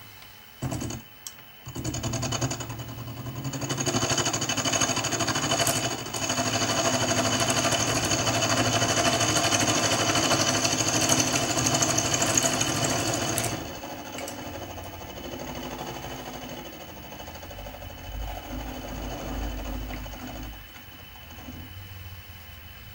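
Benchtop mini milling machine running, an end mill cutting a metal block held in the vise. A few clicks come first, then the machine starts about two seconds in. The cut is loudest and steadiest up to about two-thirds of the way through, then drops to a lighter running sound that fades lower near the end.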